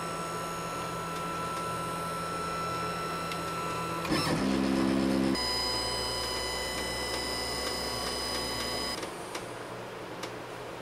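Stepper motors of a Shapeoko CNC router whining as the gantry moves the spindle across the bed, the pitch shifting with each move. About four seconds in there is a brief, louder, lower whine, and the motors fall quiet about nine seconds in, when the spindle comes to rest over the board.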